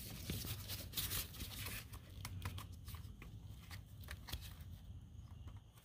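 Faint scattered clicks and rustling of hands and an air line being worked at a push-to-connect air fitting on a truck engine's solenoid valve, over a low steady hum.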